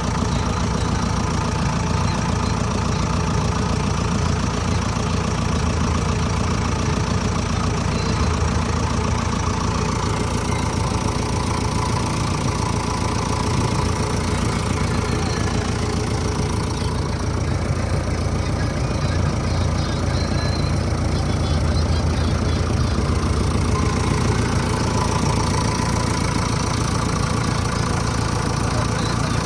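Heavy machine's diesel engine idling steadily at an even, unchanging speed.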